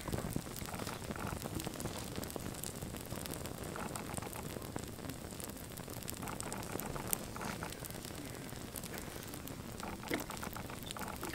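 Flames burning on a crashed die-cast toy convertible: a steady flutter of fire with scattered small crackles and ticks.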